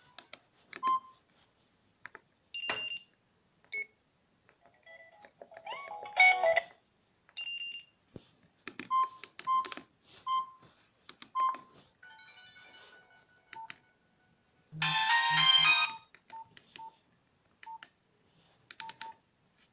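Basic keypad mobile phones beeping as their buttons are pressed, with short ringtone previews that start and cut off as the ringtone menu is scrolled. The loudest snippet, a busier tune, plays for about a second near fifteen seconds in.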